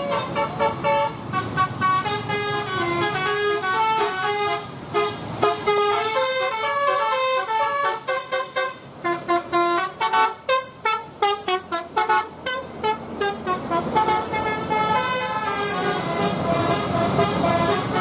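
Bus 'telolet basuri' multi-tone musical horn playing a melody of quick stepped notes, turning into a rapid choppy run of short toots in the middle.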